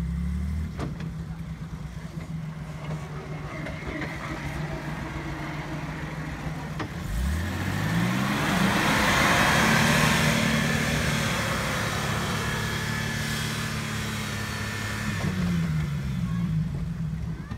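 VW LT 4x4 van's engine pulling up a sandy slope under load, running steadily, then revving up about seven seconds in and growing louder as the van passes close by, with the revs dropping again near the end.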